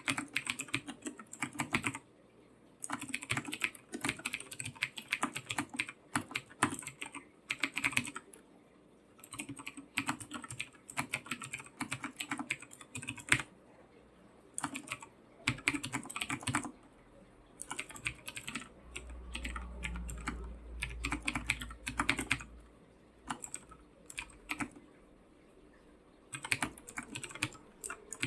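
Typing on a computer keyboard: rapid runs of key clicks in bursts, broken by short pauses. A low rumble underlies the typing for a few seconds in the middle.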